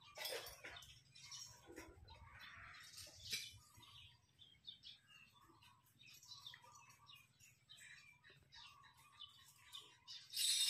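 Faint birds chirping in the background over a low steady hum, with a brief louder rustling noise near the end.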